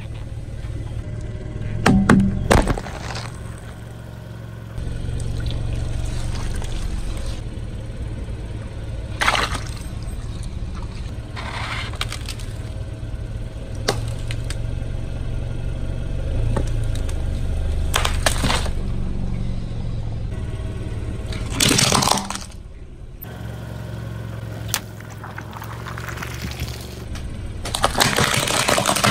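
A car tyre rolling over and crushing a series of objects, plastic toys and small balloon toys among them, with sharp cracks and pops every few seconds and a loud burst near the end, over background music.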